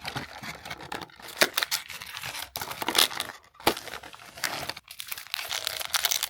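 A mystery toy package being torn open by hand: irregular rips and the wrapper crinkling, with several sharper tears along the way.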